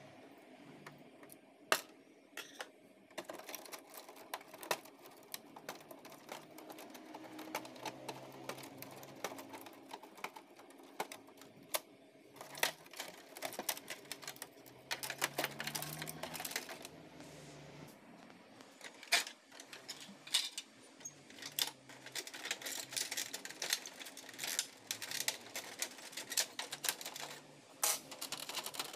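Irregular clicks and rattles of a screwdriver and plastic parts being handled inside a Brother MFC-J3530DW inkjet printer during disassembly.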